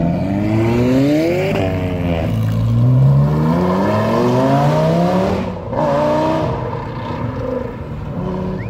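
Sports car engine accelerating hard away through the gears: the revs climb for about a second and a half, drop at an upshift, climb again for about three seconds, then break briefly and pull once more before fading near the end.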